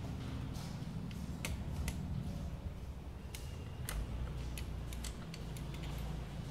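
A screwdriver working a screw on a Yamaha Nouvo LX scooter's body panel: a string of small, irregular clicks and ticks of metal on screw and plastic, over a steady low hum.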